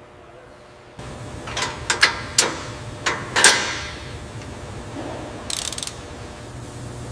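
Assembly-line machinery: a steady low hum starts about a second in, with a quick run of sharp metallic clicks and clanks that ring briefly. A short hiss follows about five and a half seconds in.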